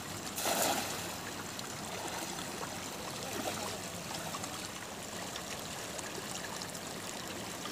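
A thrown cast net hits the river surface with a brief splash about half a second in, followed by the steady flow and trickle of shallow river water.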